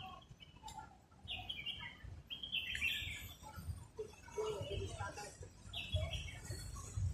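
Small birds chirping in short, repeated bursts of high calls.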